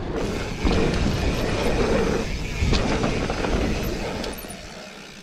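Orange Stage 6 mountain bike rolling over a stony trail: a dense rumble of tyres on pebbles and a rattle from the bike, dying down near the end.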